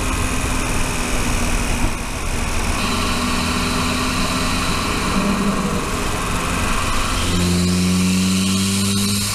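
Volvo 240 Turbo's turbocharged four-cylinder engine, picked up by a microphone in the engine bay while driving, running steadily at light throttle. Over the last two seconds or so its pitch rises slowly as the car pulls.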